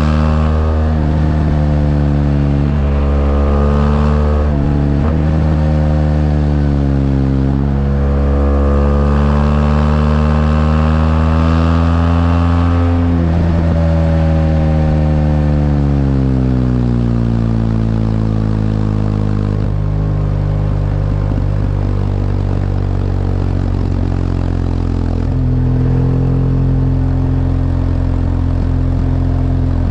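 BMW R1200GS LC motorcycle's liquid-cooled two-cylinder boxer engine under way. The revs climb in several pulls, each broken by a brief drop at a gear change, then fall away slowly over several seconds as it slows, and hold steady, stepping up once near the end.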